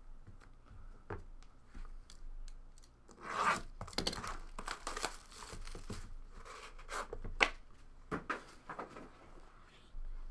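Plastic shrink wrap torn and crinkled off a trading-card box, then the cardboard sleeve and box handled with rubbing and rustling, and a sharp tap about seven seconds in.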